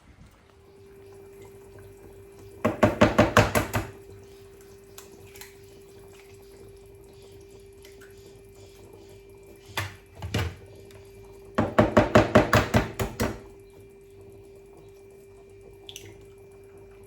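Kitchen food-preparation sounds: a steady hum throughout, with two bursts of rapid clicking about a second long each, and a couple of knocks between them.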